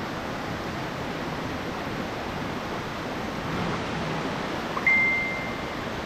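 Steady rushing water of a waterfall. About five seconds in, a single high ding sounds and fades over about a second.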